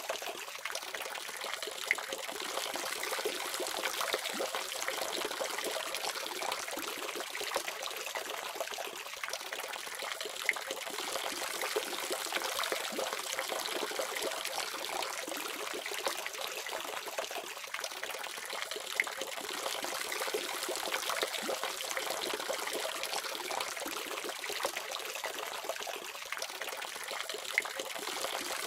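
Water running steadily from a faucet, an even splashing hiss with small droplet ticks and no low rumble.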